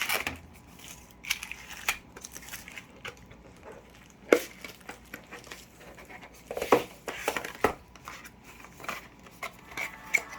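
Packaging being handled: crinkling and rustling of plastic and paper wrapping, with scattered clicks and a few sharper knocks.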